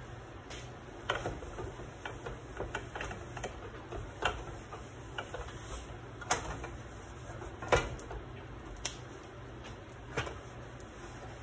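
Scattered light clicks and knocks from pans and kitchen items being handled on a gas stove, over a steady low hum. The sharpest knocks come a little past halfway.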